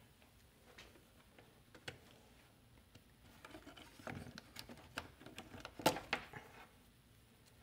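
Faint clicks and handling noises as a fuse is pushed back into a power supply's inlet fuse holder and the power cord is handled, with one sharper click late on.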